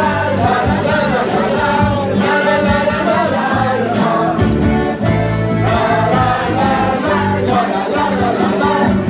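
A rondalla performing: a mixed group of voices singing together over strummed guitars and mandolins.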